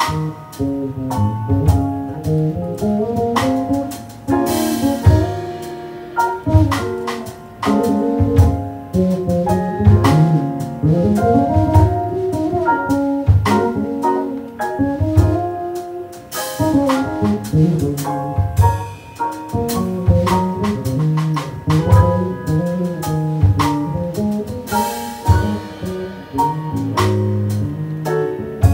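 Jazz band playing live: keyboard, electric bass and drum kit, with cymbal crashes about five seconds in and again near the end.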